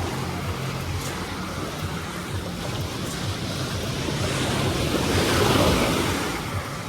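Small sea waves breaking and washing up on a sand beach, one wash swelling louder about five seconds in, with wind buffeting the phone's microphone.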